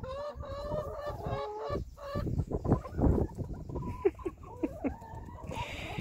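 Hens clucking as they feed: drawn-out, wavering calls at first, then a flurry of pecking and rattling at a metal pellet feeder around the middle, and a few short clucks near the end.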